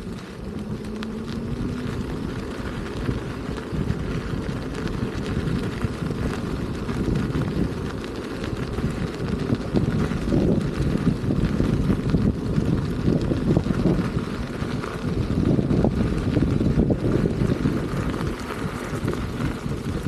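Wind buffeting the camera microphone on a moving electric unicycle, a fluctuating low rumble that gusts a little stronger in the second half.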